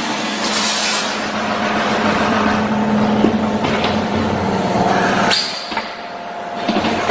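Granola packing machine running, with a steady motor hum and short bursts of hiss about half a second in and again near five seconds in; the sound dips briefly after the second hiss, then picks up again.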